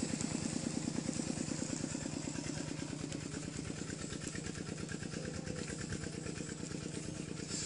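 A small engine idling steadily nearby, a fast even putter.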